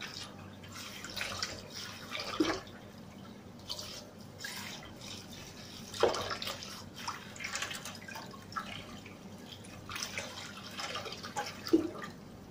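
Kitchen tap running and splashing as a bunch of grapes is rinsed under the stream and dipped into a bowl of water in a steel sink. The splashing comes and goes unevenly, with a few louder splashes and drips.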